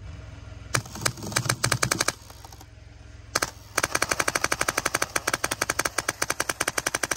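Homemade airsoft BB marker driven by a Polarstar compressed-air engine, firing BBs in sharp shots. A short string of shots comes about a second in and a single shot follows a couple of seconds later. Then comes a long rapid string of about a dozen shots a second.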